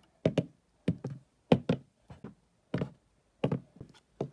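A plastic Schleich toy horse figurine tapped on a hard surface to mimic hoofbeats: short knocks, mostly in quick pairs, repeating about every two-thirds of a second in a steady rhythm.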